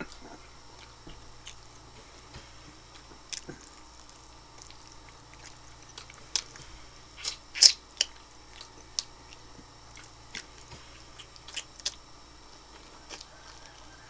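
Close-miked chewing and biting of tandoori chicken wings: scattered wet clicks and crunches. The loudest bites come about halfway through.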